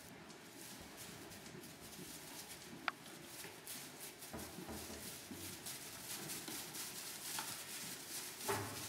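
Cormo lambs' small hooves pattering and rustling through straw bedding as they move about the pen, with a sharp click about three seconds in and a brief louder bump near the end.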